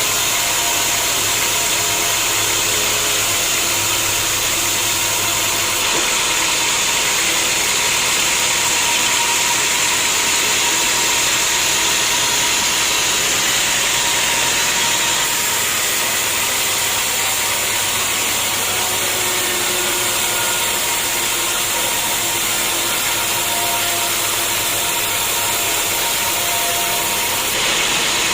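Sawmill machinery running steadily, a loud mix of motor and saw-blade noise, changing abruptly in character a few times.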